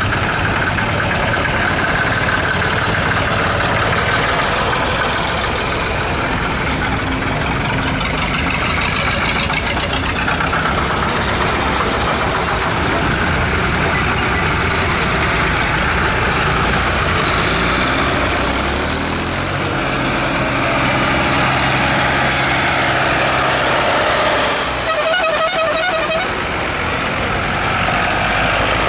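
Tractor engines running steadily, with a brief high-pitched tone near the end.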